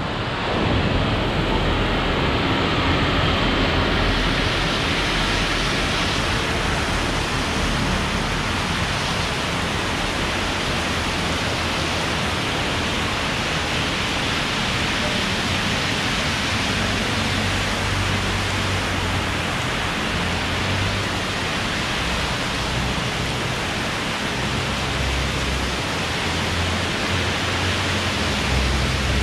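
Heavy rain falling steadily, a dense even hiss, with a low rumble rising near the end.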